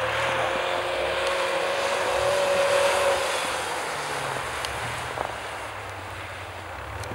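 A Volvo rally sedan's engine held at steady high revs as the car drifts across the ice. It grows louder as the car passes, peaking about three seconds in, then fades as the car pulls away.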